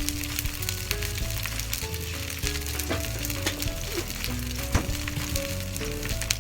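Yellowtail (buri) fillets frying skin-side down in sesame oil in a frying pan, a steady sizzle with frequent small crackles and pops as the skin crisps.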